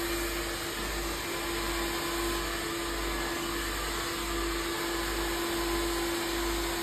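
Hand-held hair dryer blowing steadily while hair is blow-dried: a constant rush of air with a steady motor whine.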